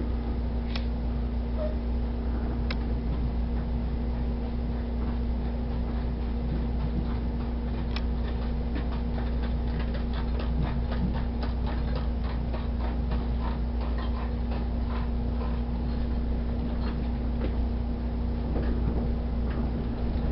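Inside a moving passenger train car: a steady low rumble with a constant hum, and from about eight seconds in a run of quick clicks and knocks from the wheels on the track.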